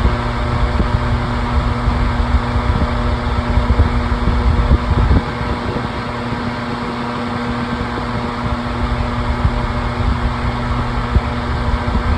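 Vornado box fan running on its highest speed: a steady motor hum under loud rushing air, with low buffeting that eases off about five seconds in.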